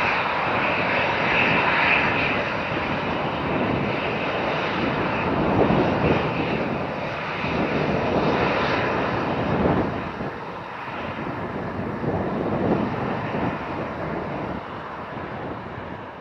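Airbus A320-214's CFM56 jet engines rumbling loudly with a high whine early on, fading steadily over the last several seconds as the airliner moves away after landing.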